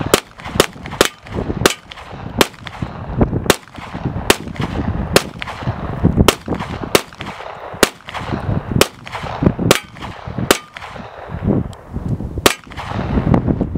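Ruger-57 pistol firing 5.7×28mm rounds in a rapid string of about twenty single shots, at an uneven pace of roughly two a second, with a pause of about two seconds before a final shot near the end.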